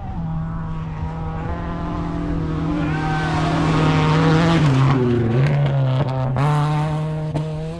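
Rally car approaching and passing at speed, its engine note swelling to its loudest about four and a half seconds in, dropping briefly, then climbing again as it accelerates away.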